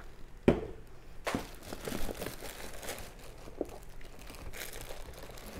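Crinkling and rustling of packaging as products are pulled from a box, with two light knocks about half a second and a second and a quarter in.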